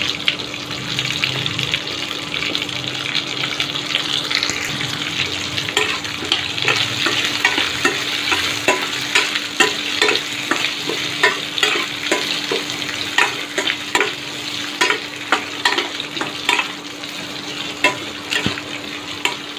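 Finely chopped onions frying in hot oil in a kadai, a steady sizzle, stirred with a spatula that clicks and scrapes against the pan, more often from about six seconds in.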